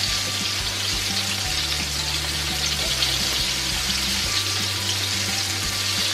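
Egg-and-flour-battered chicken pieces frying in a pan of hot oil: a steady, dense sizzle and crackle.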